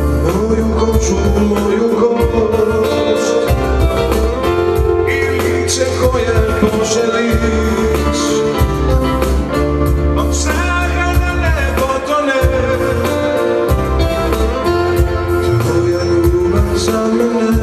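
A male singer singing with a live band of keyboard and electric guitar over a steady beat.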